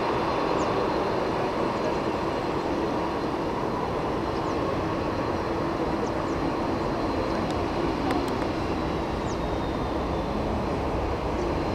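Airbus A380 turbofan engines heard at a distance on the runway: a steady jet engine noise with a faint high whine over it.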